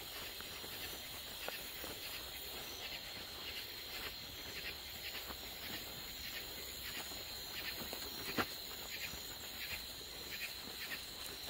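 Steady night chorus of crickets, a thin even trill, with scattered footsteps on a dirt trail and one sharper click about eight seconds in.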